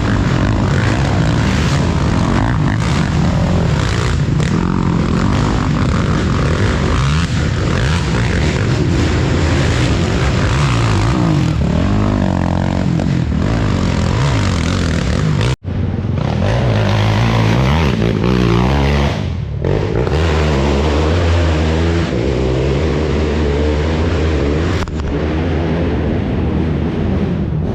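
Racing ATV engines running hard, their pitch rising and falling with the throttle. The sound cuts off abruptly about halfway through and picks up again.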